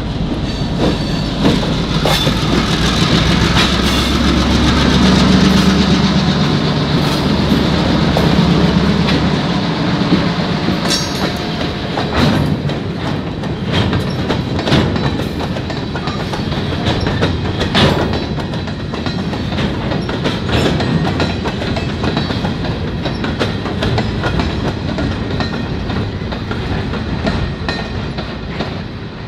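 Diesel locomotives of a freight train passing close by, their engines giving a steady low drone for the first ten seconds or so. The freight cars' wheels then clack and clatter over the rails and the road crossing, with the sound fading near the end as the train moves off.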